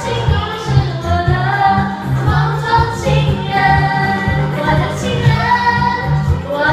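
Women singing karaoke into handheld microphones over a music backing track with a steady bass line.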